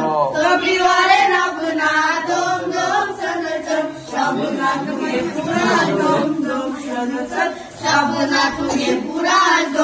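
A group of children singing a Christmas carol together, unaccompanied.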